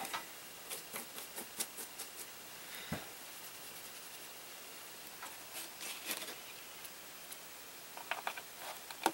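Faint scattered clicks and taps of art supplies being handled, with one soft thump about three seconds in. A quicker run of small clicks comes near the end as the paintbrush is brought to the plastic paint pots.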